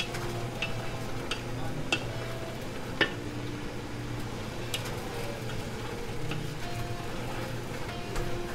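Wooden spatula stirring and tossing rice noodles and vegetables in a large pot over the heat, with a sizzle and several sharp knocks of the spatula against the metal pot, the loudest about three seconds in.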